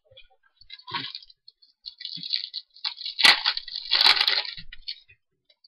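Wrapper of a Bowman Chrome baseball card pack crinkling as it is torn open and handled, with a sharp crack about three seconds in.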